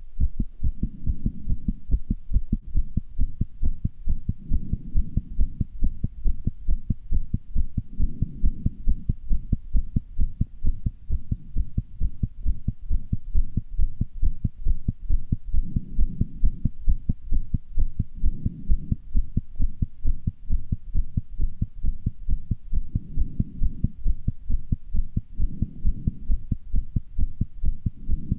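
A human heart beating fast, its valves heard opening and closing quickly as an even, rapid run of low, muffled knocks. A softer swell of sound comes and goes every few seconds.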